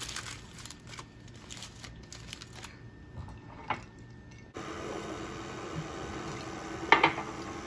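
Aluminium foil crinkling as it is pressed around a round cake pan, then, after an abrupt change, a KitchenAid Classic stand mixer running on a low speed with a steady hum. A short sharp sound comes about two and a half seconds after the mixer starts.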